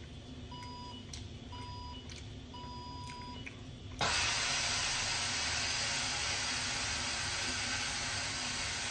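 An electronic appliance beeps three times, two short beeps and then a longer one. About four seconds in, a loud, steady rushing hiss starts abruptly and keeps going.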